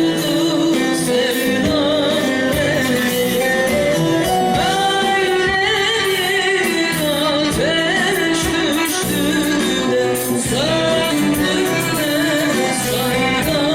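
A woman singing a Turkish folk song (türkü) with ornamented, wavering melody over instrumental band accompaniment, amplified through a sound system.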